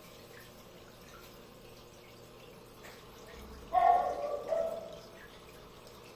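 Faint, steady trickle of aquarium water. About four seconds in comes one short, louder pitched sound lasting about a second.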